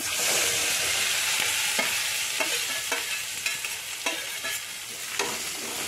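Chopped long beans, onion and green chillies dropping into hot coconut oil in an aluminium pan and sizzling hard. The sizzle starts suddenly, is loudest at first and eases off over the next few seconds. A few light clicks sound through it.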